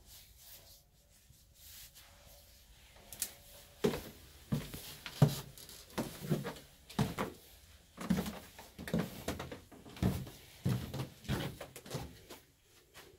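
Footsteps going down a flight of basement stairs: a regular series of heavy treads, about one every two-thirds of a second. They start about four seconds in and stop shortly before the end.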